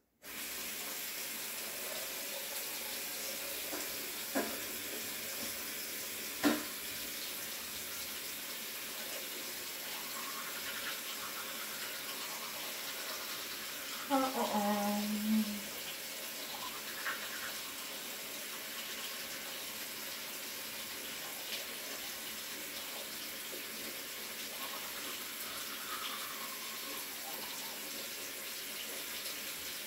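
Bathroom sink faucet turned on and running steadily into the basin, with two light knocks and a brief hum-like tone partway through.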